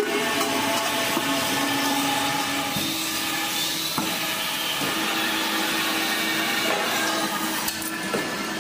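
Rotary roller machine turning a sheet-steel cylinder on a mandrel against a steel roller wheel: a steady mechanical whir and hiss with a couple of short clicks.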